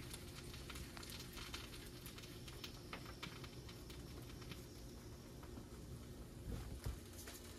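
Rolling pin working a stuffed paratha on a rolling board: faint, irregular light taps and rubbing over a low steady hum, with one soft thump near the end.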